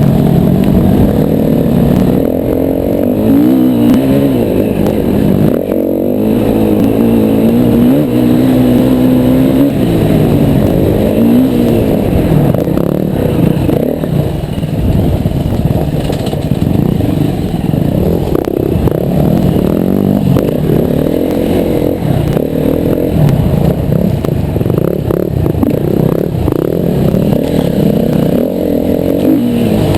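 Yamaha WR250R dirt bike's single-cylinder four-stroke engine being ridden off-road, revving up and dropping back over and over with the throttle. Short knocks and rattles from the bike run through it.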